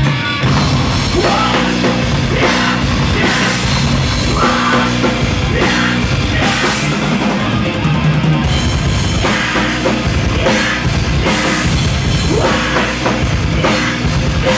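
Heavy rock band playing live and loud: distorted electric guitars and bass over a driving drum kit.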